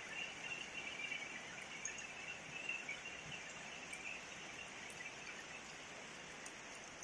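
Steady rain hissing, with insects chirping at a high pitch over it; the chirping fades out about four seconds in.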